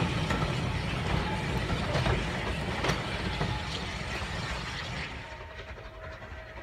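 Goods train wagons and brake van rumbling and clacking over the rail joints as they run away, the sound fading, with a few sharp clicks from the wheels. The sound drops lower about five seconds in.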